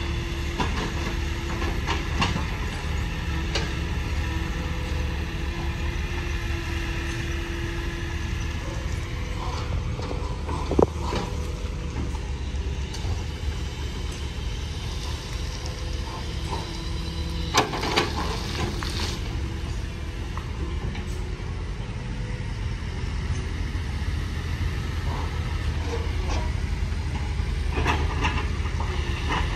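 Heavy diesel construction machinery running with a steady low rumble, broken by sharp metallic clanks about eleven seconds in and again twice around eighteen seconds in.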